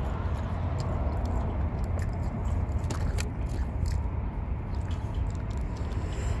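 A person chewing a bite of chicken nugget, with scattered small clicks of chewing, over a steady low rumble.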